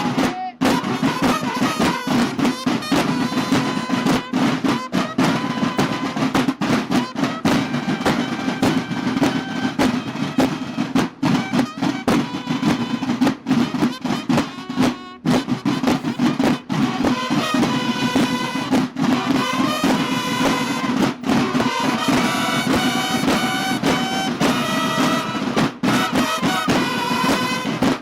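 Mexican banda de guerra playing: fast, dense drumming throughout, with trumpets playing over the drums more strongly in the second half.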